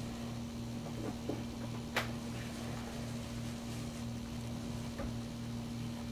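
A steady low mechanical hum, with a few faint ticks and one sharp click about two seconds in.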